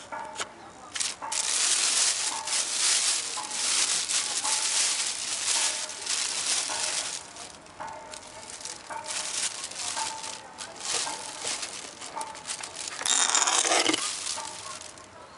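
Plastic bag crinkling and rustling as hands rummage through a cardboard box of packed items, with a louder burst of crinkling near the end.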